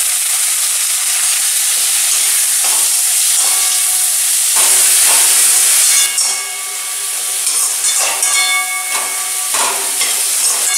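Chopped tomatoes and onion-spice paste sizzling loudly in hot oil in a metal kadai. From about six seconds in, a metal spatula stirs and scrapes against the pan, adding a ringing metallic scrape over the sizzle.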